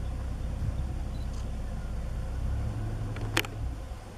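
Game-drive vehicle's engine idling: a low, steady rumble that dies away near the end. One sharp click comes about three and a half seconds in.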